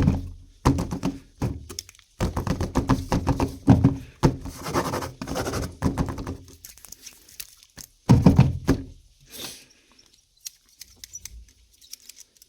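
Plastic toys and their packaging being handled during an unboxing: a busy run of knocks, taps and rustles that thins out to a few light ticks near the end.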